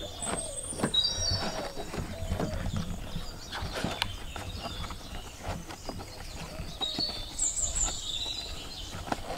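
Irregular knocks, clicks and rustles of a convertible child car seat being handled and its seat belt pulled and threaded through the seat's belt guide. Bird calls chirp high above it, once near the start and again about seven seconds in.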